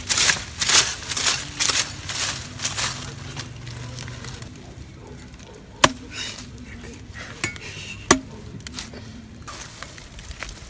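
Dry leaf litter and twigs crunching in a quick run of steps for the first few seconds, then quieter rustling with two sharp snaps or knocks.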